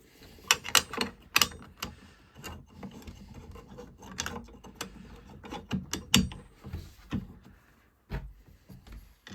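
Irregular metallic clicks and clinks of parts being handled by hand as a new blade is seated on the arbor of a Festool CSC SYS cordless table saw, with a few louder knocks in the first second and a half and another about six seconds in.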